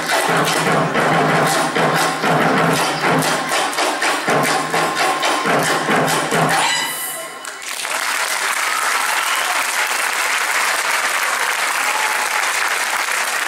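Rhythmic percussion music of fast hand-clapping and drums, which ends about seven seconds in. Steady audience applause follows.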